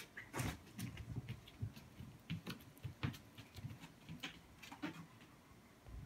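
Soft, irregular taps and thumps of a golden retriever moving about on a carpeted floor, about two to four a second.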